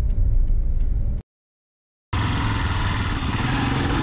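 Low road rumble inside a moving car's cabin, cut off by about a second of silence. Then a Honda motorcycle's engine runs steadily as the bike rides along, with a broad rush of noise over it.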